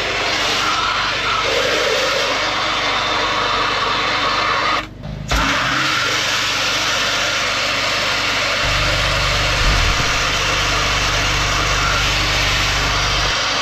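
Drain-cleaning machinery running, a motor with a steady rushing hiss of water or air. The noise cuts out for a moment about five seconds in, and a low hum joins it about two-thirds of the way through.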